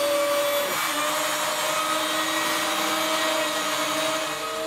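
CNC router spindle running with an 18 mm straight slot cutter, surfacing the plywood spoilboard: a steady whine over the hiss of wood being cut, its pitch shifting slightly about a second in. The cutter is taking about half a millimetre off to level and calibrate the table.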